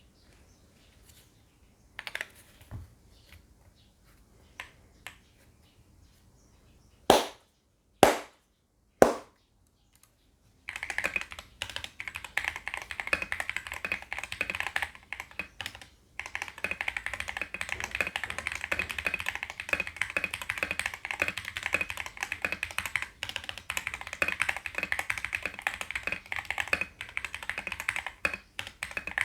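Mechanical keyboard with lubed MMD Holy Panda tactile switches and XDA-profile PBT keycaps: a few scattered keystrokes, then three loud single clacks about a second apart, then fast continuous typing for the rest, with one short pause in the middle.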